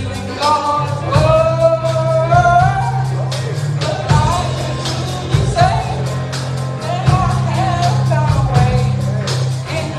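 Live band music with a lead voice singing over bass, guitar and drums, a worship song at steady volume.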